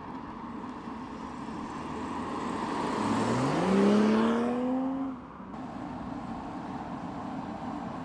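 A car accelerating past: its engine note climbs for about half a second, then holds while growing louder, peaking about four seconds in. It cuts off abruptly a little after five seconds, leaving a steady background hum.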